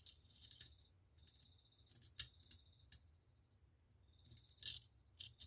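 Steel parts of a Colt 1911 pistol clicking and clinking lightly against each other as they are handled: a scatter of short metallic ticks, the sharpest about two seconds in.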